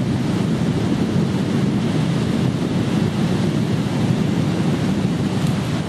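Wind rumbling steadily on the microphone over the wash of sea surf.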